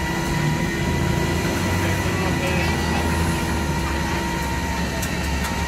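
Flatbed tow truck's engine running steadily, a low hum with a faint steady whine above it.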